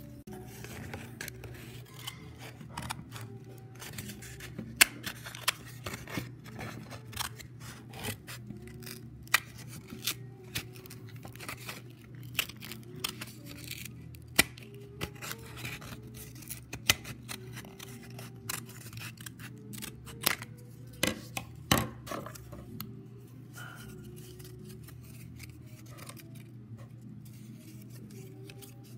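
Steel scissors snipping through a cardboard toilet-paper roll, cutting it into a spiral: many short, sharp snips, thinning out near the end.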